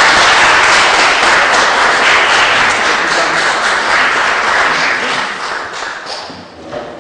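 Audience applauding, loud and steady, then fading away over the last two seconds.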